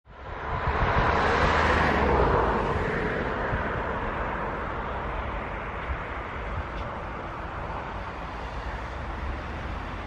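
Claas Axion 870 tractor engine working steadily under load as it pulls a reversible plough through the soil. The drone fades in at the start, is loudest in the first couple of seconds, then settles to an even level.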